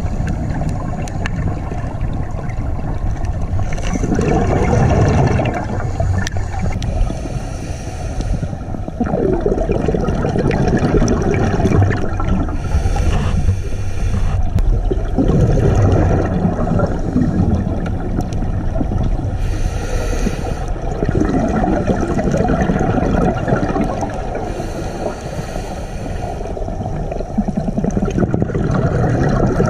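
A scuba diver's regulator breathing underwater: a short hiss on each inhalation, then a longer rush of exhaled bubbles, repeating roughly every six seconds.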